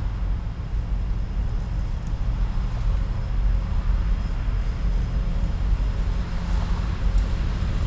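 Low, steady rumble of two approaching EMD diesel locomotives, an SD70AC and an SD50, leading a freight train.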